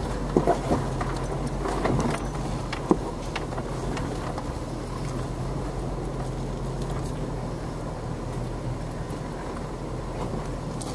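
Jeep engine running steadily at low speed as it crawls along a rutted dirt trail, with the body and loose items rattling and knocking sharply several times in the first three seconds, loudest about three seconds in.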